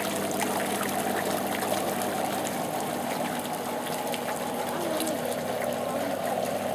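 MSpa inflatable spa with its jets running: a steady pump hum under water churning and swirling in the tub.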